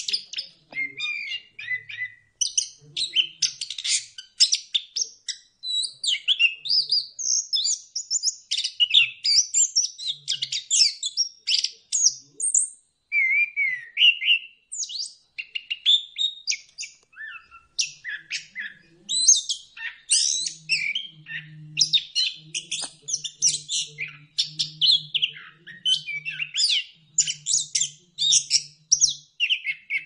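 Chestnut-capped thrush (anis kembang) in full, energetic song: a rapid, nearly unbroken stream of varied high whistles, trills and chattering phrases.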